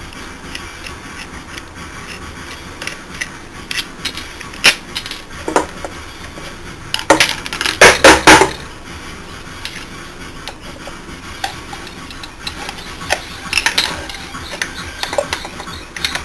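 Clinks and knocks of screwdrivers and an ABS controller unit being handled on a steel workbench, with a burst of loud clattering about seven to eight seconds in.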